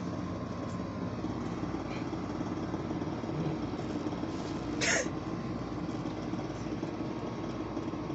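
Steady background hum, with one short, sharp sound about five seconds in.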